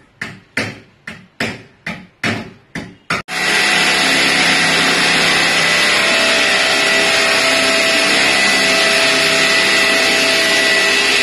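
A hammer striking wood about twice a second, eight blows, then about three seconds in an electric drill starts and runs steadily with a high whine.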